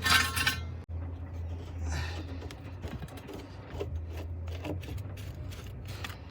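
A short metallic clink, then scattered light rattles and clicks of metal parts being handled over a steady low hum.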